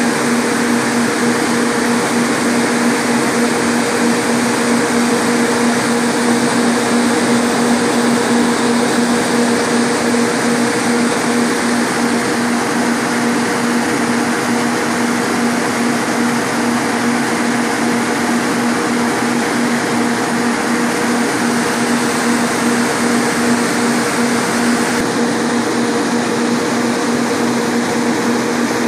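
Electric radiator cooling fans running steadily: an even rush of moving air with a constant low hum from the fan motors.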